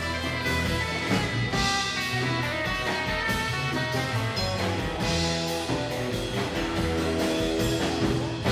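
Live rockabilly band playing an instrumental passage without vocals: acoustic guitar over a drum kit, with a steady beat and low bass notes.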